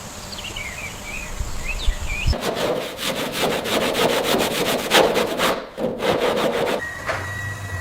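Quick, rhythmic rasping strokes of a hand tool working back and forth over a surface, several strokes a second, starting a couple of seconds in. Near the end they give way to a steady tone.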